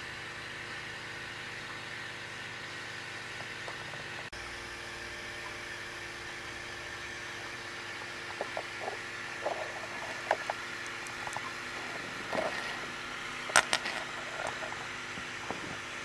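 Steady low hum and hiss. In the second half come a few scattered light clicks and taps, the sharpest one late on.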